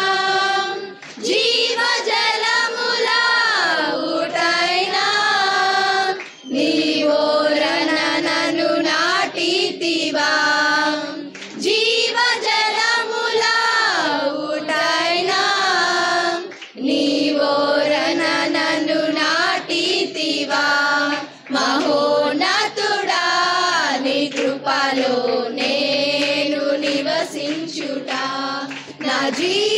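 Girls' choir singing a Telugu Christian song, the phrases broken by short pauses for breath about every five seconds.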